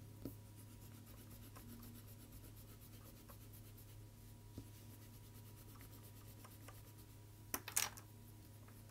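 Faint rubbing of a pencil eraser on paper, with soft scratchy strokes over a low steady hum. Two brief louder scuffs come near the end.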